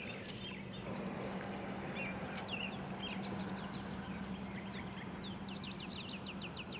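Songbirds calling in the background: scattered high chirps, then a fast run of short, falling notes, about four a second, in the second half. A steady low hum runs underneath.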